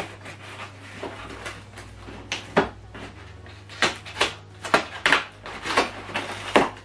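A blade cutting and scraping through the packing tape on a corrugated cardboard shipping box: a run of short, sharp scrapes that start about two seconds in and come several a second by the end.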